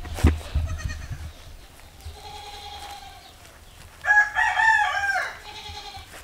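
Rooster crowing: a faint, drawn-out crow from further off about two seconds in, then a loud crow of several stepped notes lasting over a second, about four seconds in. A few knocks and rustles in the first second.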